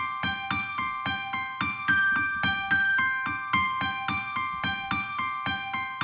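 Calm instrumental music: a piano playing an even run of short, struck notes, about four a second.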